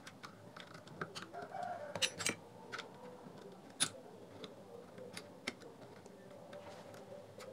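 Scattered light clicks and ticks of tweezers on small plastic parts as the mic connector is worked loose inside a Bluetooth speaker, the sharpest about two and four seconds in. A rooster crows faintly in the background from about a second in.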